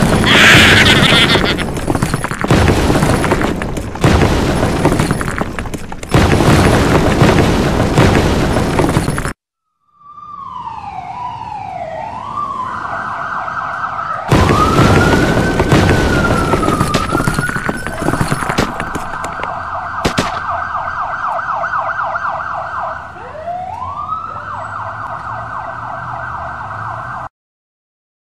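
Loud crashing and explosion noise for about nine seconds. After a moment's silence, a police siren wails and warbles, sweeping up and down in pitch, and cuts off suddenly near the end.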